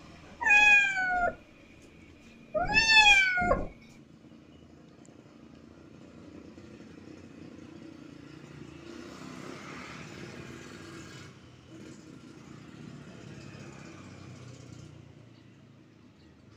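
Kitten meowing twice in the first few seconds. Each meow is high-pitched and about a second long, the second one rising and then falling.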